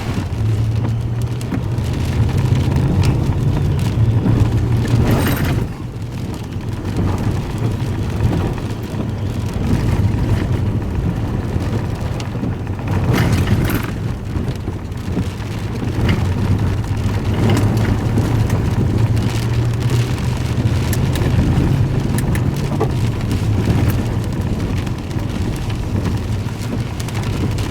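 Pickup truck driving on a wet, unpaved road, heard from inside the cab: a steady low rumble of engine and tyres with rain on the vehicle. Two brief louder noisy surges come about five and thirteen seconds in.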